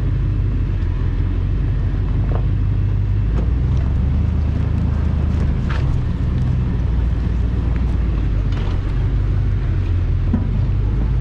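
A 2001 GMC Sierra 2500HD pickup truck driving slowly over a rough dirt jeep trail. The engine drones low and steady, with a few light knocks from the truck jolting over bumps.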